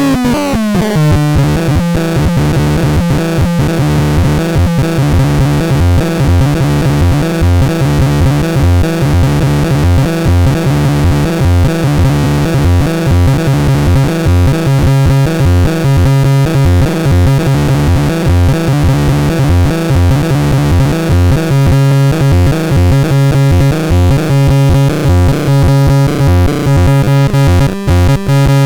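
Synthesizer-style electronic music from the Hoxton LTT336, a steady repeating rhythm over a strong bass line, opening with a quick falling pitch sweep.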